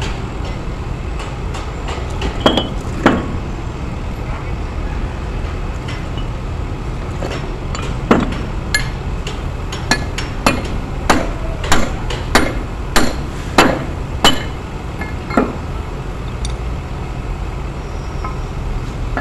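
Hammer blows on a steel Kenter joining shackle in an anchor chain, metal striking metal as the shackle is worked apart. There are two blows early, then a run of about ten blows roughly every half second, then one more, all over a steady low background drone.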